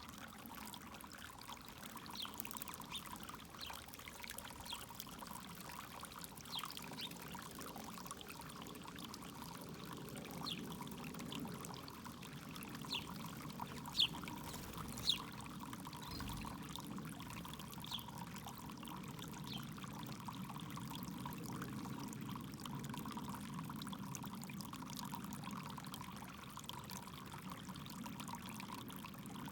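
Backyard fountain water pouring and trickling steadily, with a few short high sounds scattered over it and two sharper, louder ones in quick succession about halfway through.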